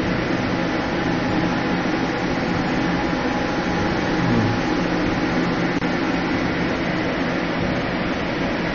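Doosan Puma S710 CNC horizontal lathe with its spindle running, a steady machine hum; the spindle sound is judged good.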